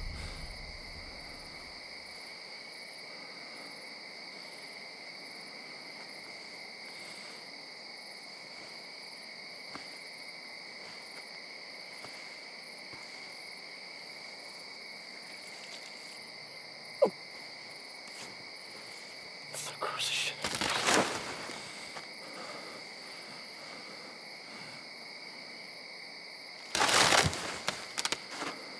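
Steady chorus of crickets trilling at two constant high pitches. A brief falling sound comes about two-thirds of the way in, and two short bursts of noise follow near the end.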